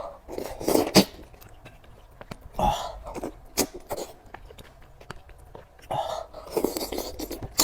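Close-up eating sounds: several short slurps and mouth noises with sharp little clicks between them.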